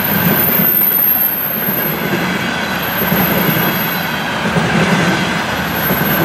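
Container flat wagons of a freight train rolling past at speed: a loud, steady noise of steel wheels running on the rails.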